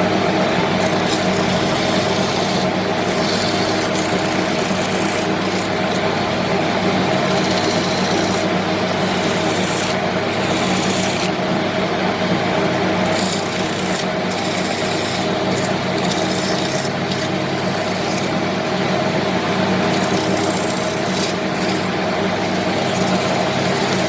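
Wood lathe running with a steady motor hum while the spinning mahogany workpiece is worked, a rough rasping scrape whose top end swells and fades every second or two.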